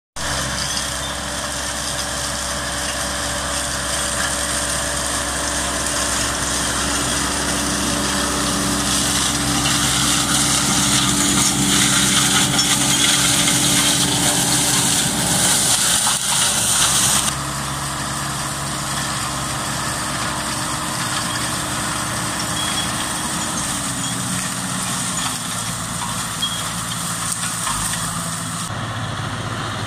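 A John Deere 5500 tractor's diesel engine runs steadily under load, driving a Tierre flail mulcher that chops standing corn stalks. A hissing rush from the mulcher makes the sound louder for a stretch in the middle, then drops away suddenly about two-thirds of the way through.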